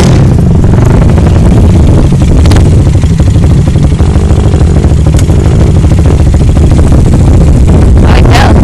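ATV engine running under throttle, very loud and close, its note wavering around the middle.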